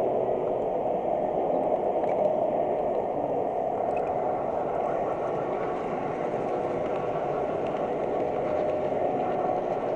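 Steady running noise of a model train, heard from on board as it rolls along its track, with no breaks or sudden sounds.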